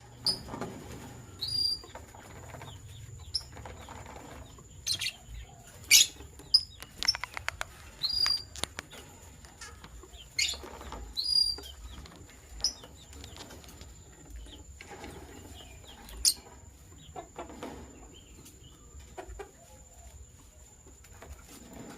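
Lovebirds giving short, high chirps at irregular intervals, mixed with sharp clicks and rustling as the birds move about. A faint steady high-pitched whine runs underneath.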